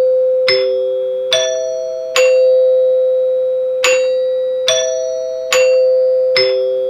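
NuTone LA305 short-tube bar chime playing its eight-note front-door sequence: solenoid plungers strike the tone bars in two phrases of four, with a short pause between them, each note ringing on over the next. The repaired chime is working properly.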